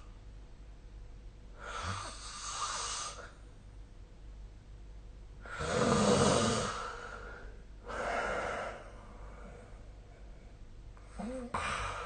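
A sleeping person snoring and breathing heavily, in separate rasping breaths a few seconds apart. The loudest, deepest snore comes about six seconds in, with softer breaths around two, eight and eleven seconds.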